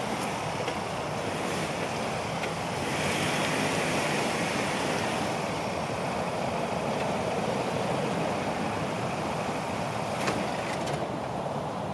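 Ford Ranger pickup stuck in mud, its engine running under throttle while the tyres spin and churn the mud. The sound grows louder about three seconds in, and a couple of sharp ticks come near the end.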